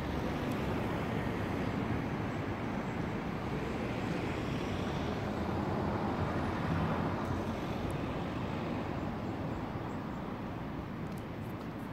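Steady rumble of road traffic, swelling a little midway and easing slightly towards the end.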